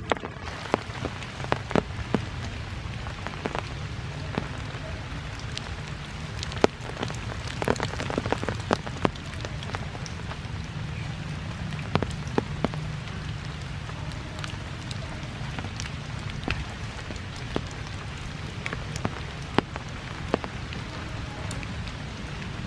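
Steady rain falling on leaves and the forest floor, with many scattered sharp drips and taps.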